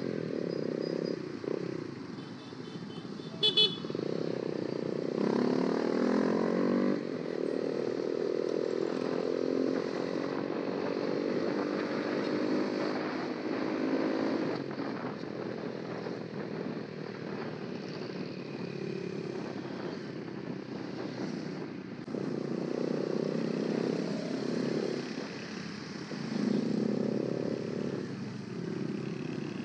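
Honda RS150's single-cylinder engine under way on the road, its revs rising and falling with the throttle, with wind noise on the microphone. A vehicle horn toots briefly about three seconds in.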